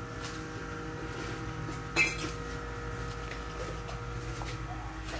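A single sharp metallic clink about two seconds in, ringing briefly, over a steady low hum.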